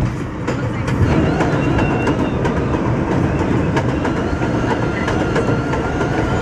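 New York subway train running along elevated steel track, wheels clattering over the rail joints with a rapid irregular clicking over a steady rumble. A thin high whine runs under it and grows stronger in the second half.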